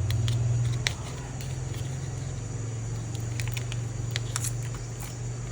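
Steady low electrical hum with a few faint, scattered clicks from small phone parts being handled during a repair.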